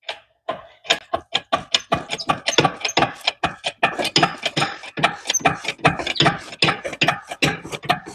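Red shop engine hoist being pumped by its hand lever to lift a battery pack: a rapid, uneven run of clacks and clicks from the lever and hoist mechanism, about six a second.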